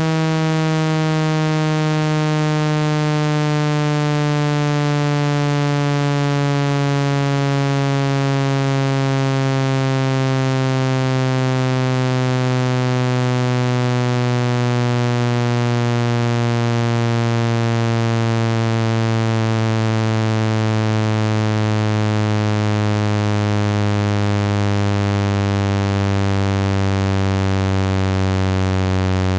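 Phone-speaker water-eject tone: a continuous electronic buzz, full of overtones, sliding slowly and evenly down in pitch. It is a low-frequency sweep meant to vibrate trapped water out of a smartphone speaker.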